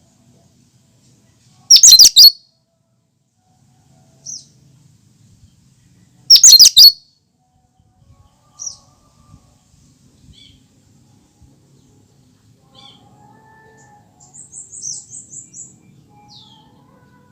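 Cucak kinoi calling: two loud bursts of sharp, high notes about four seconds apart, then fainter scattered notes and a quick run of very high notes near the end.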